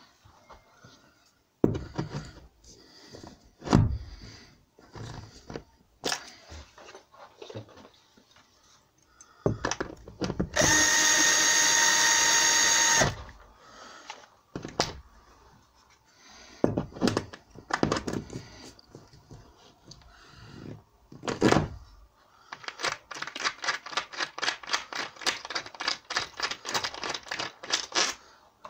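A metal hollow wall anchor being fitted into plasterboard: scattered knocks and clicks, then a drill running steadily for about two seconds near the middle. Near the end comes a fast, even ticking.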